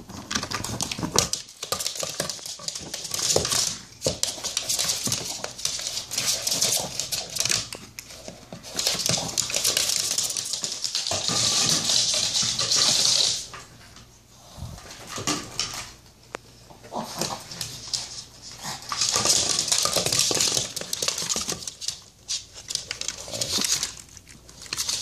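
A small dog playing with a rubber puffer-fish ball toy, with dog sounds and scuffling in bursts a few seconds long, broken by short pauses.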